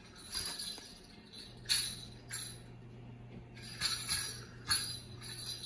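Small bells jingling in short, irregular shakes, about six in all, over a steady low hum that sets in about a second and a half in.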